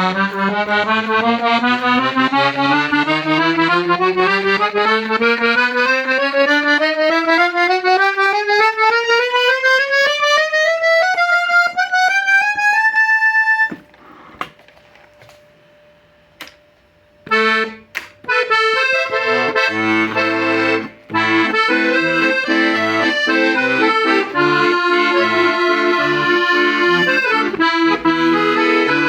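Hohner Verdi III piano accordion: a long rising scale up the treble keyboard, a pause of a few seconds broken by a few clicks, then a tune with chords over a regular, rhythmic bass.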